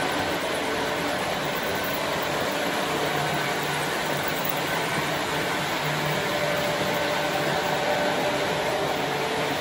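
Model freight train with a Santa Fe diesel locomotive running past on the layout track: a steady rolling noise of wheels on rail and the motor, with a faint hum underneath.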